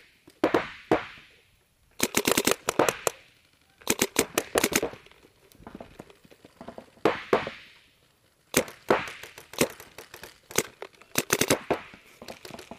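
Paintball markers firing: several fast strings of sharp pops, each lasting about a second, with single shots in between.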